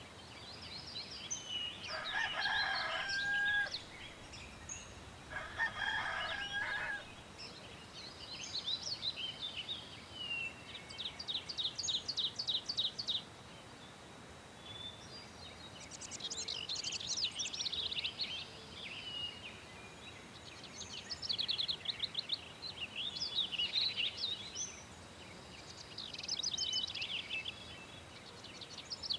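A rooster crowing twice in the first few seconds, with small birds singing in quick high trills throughout.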